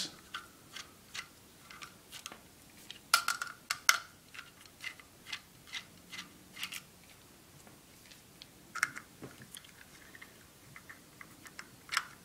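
Small screwdriver clicking and scraping in the screw heads of a stainless-steel kitchen timer's base as the screws are undone, a string of irregular light metallic ticks. A few louder clicks come about three to four seconds in and again near the end.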